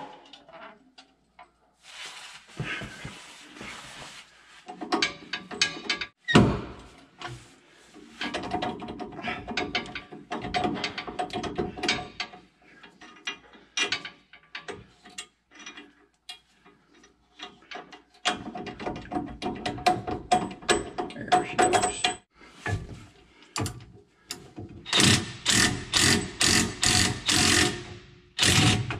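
Wrench work on the bracket bolts of a rear anti-sway bar under a motorhome: bursts of rapid mechanical clicking and rattling with short pauses between them, the loudest run near the end, and a single sharp metal knock about six seconds in.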